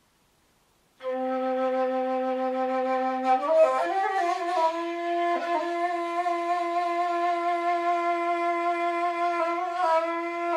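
Instrumental music: a wind instrument playing long held notes, starting about a second in; after a couple of seconds the note slides up a step and is held again.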